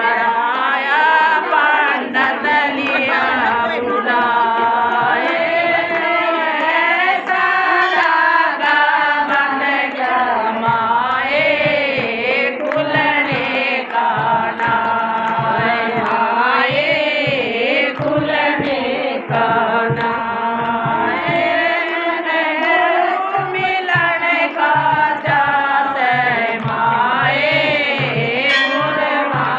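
A group of women singing a Hindi devotional bhajan together in a folk chanting style, with hand-clapping keeping time throughout.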